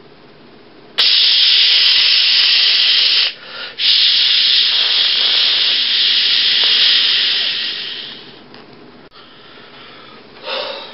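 A loud, steady hiss in two long stretches: it starts suddenly about a second in, breaks off briefly after about two seconds, then resumes and fades away about eight seconds in.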